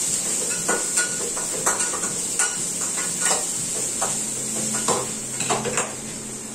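Ridge gourd sautéing in oil in a steel kadai, a steady sizzle, with a metal spatula scraping and knocking against the pan every second or so as it is stirred.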